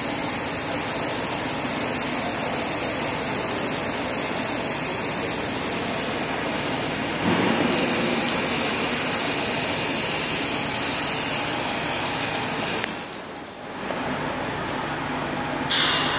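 TIG welding arc on 316 stainless steel pipe: a steady hiss that grows a little louder about halfway through. It dips sharply about three seconds before the end, then returns quieter, with a brief sharp hiss just before the end.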